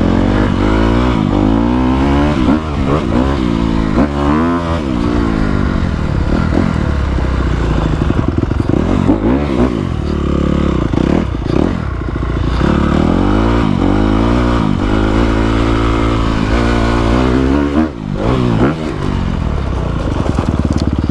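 Honda dirt bike's engine being ridden hard, revving up and falling back again and again with the throttle and gear changes. The level dips briefly about eighteen seconds in.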